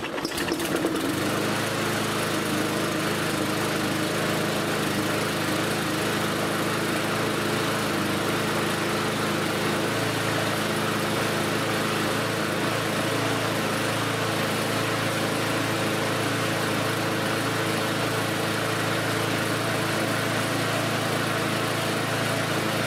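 Petrol engine of a Mountfield rotary lawnmower running at a steady governed speed on its original governor springs, settling into its run about a second in. It runs nice and even.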